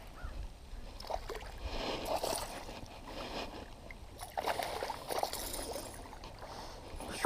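Water splashing and sloshing in irregular bursts as a hooked largemouth bass is fought in toward the bank.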